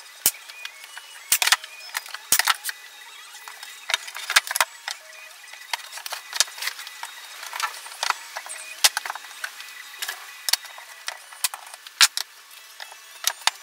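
A run of sharp clicks and knocks from a pneumatic brad nailer and plywood being assembled on a workbench, with the loudest snaps about a second apart near the start and another loud knock near the end.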